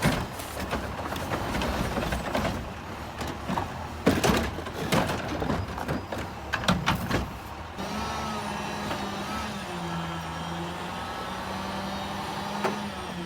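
Garbage truck at work: a run of clanks and bangs, then from about eight seconds in a steady engine hum with a higher whine.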